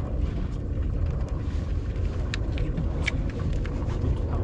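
Boat's Honda outboard motors idling with a steady low rumble, with a few light clicks about two and three seconds in.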